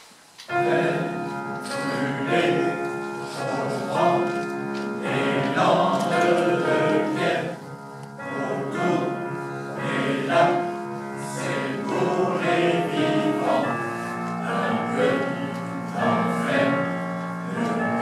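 Mixed choir of women's and men's voices singing together in a stone church; the singing starts abruptly about half a second in.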